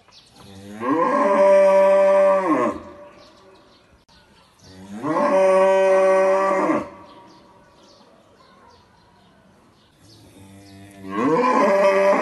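A black cow mooing three times, each moo about two seconds long and a few seconds apart, rising in pitch as it starts and falling away as it ends.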